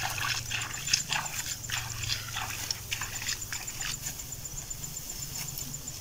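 Dry, ripe rice stalks rustling and crackling as someone wades through them, in irregular short bursts that thin out after about four seconds, over a low steady hum.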